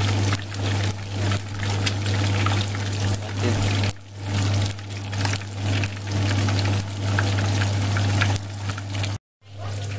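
Whole fish frying in hot oil in a pan, sizzling steadily with scattered crackles and pops as the skin crisps. A steady low hum runs underneath, and the sound cuts off abruptly near the end.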